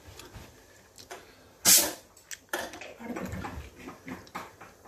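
A short, loud hiss about a second and a half in, lasting under half a second. Light kitchen clatter and faint low voices follow.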